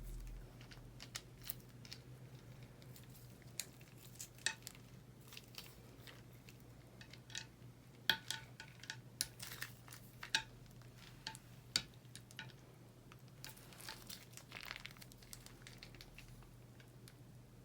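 Slime being handled and pressed, giving irregular sticky clicks and crackling pops, with a low steady hum under it.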